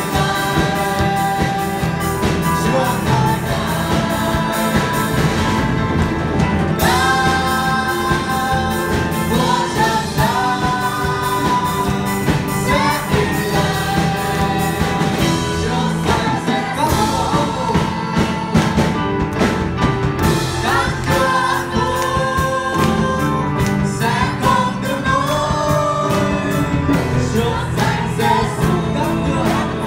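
Live gospel hymn sung by a woman and a man into microphones, backed by a drum kit, electric guitar and keyboard, with a steady drumbeat.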